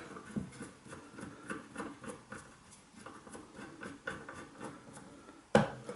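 A screw being driven back into a cooker door by hand: a run of faint, light clicks and scrapes, several a second, with one louder knock near the end.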